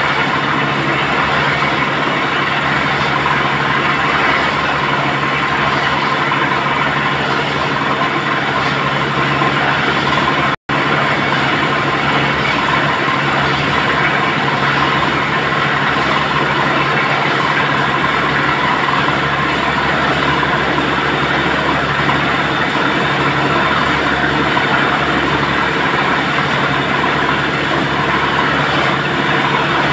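Tractor-mounted borewell drilling rig running steadily, a constant loud machine hum mixed with water gushing out of the borehole around the drill pipe. The sound cuts out for an instant about a third of the way through.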